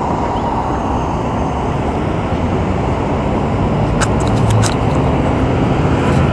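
Steady street traffic noise, with a few short clicks about four seconds in.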